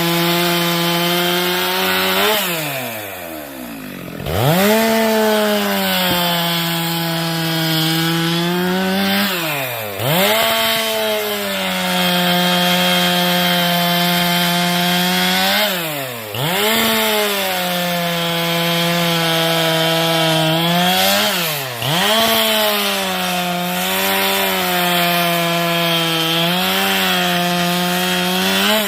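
Chainsaw running at high revs, cutting firewood; its revs drop sharply and climb back up about every six seconds.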